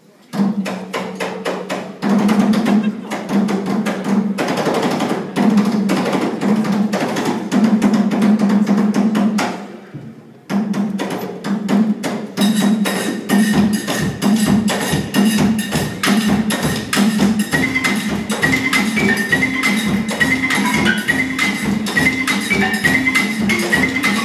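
Live Manding music: two balafons (wooden West African xylophones) struck with mallets in a fast, dense rhythm over a repeated low note, with drums. It breaks off briefly about ten seconds in and resumes. A higher melodic line then enters, and a deep drum pulse joins underneath.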